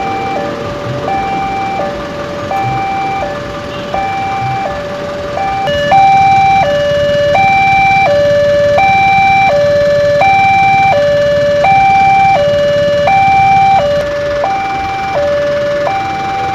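Railway level-crossing warning alarm sounding: an electronic two-tone signal alternating between a higher and a lower note, about one pair a second. It gets louder about six seconds in and drops back a little near the end.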